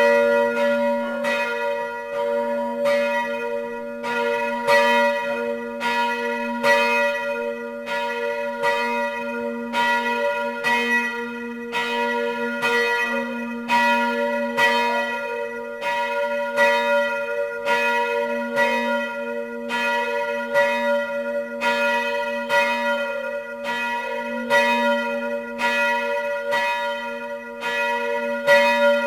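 Church bells pealing, several bells struck in a fast, even succession with their tones ringing on and overlapping. The peal starts suddenly at the very beginning.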